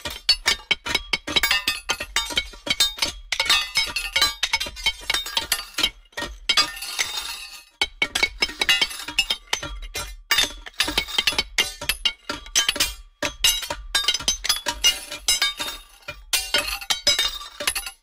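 Background music with bright, clinking, chime-like percussion.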